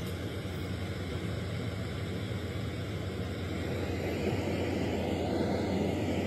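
Steady cabin noise inside a passenger jet: an even, low rushing drone of the engines and air.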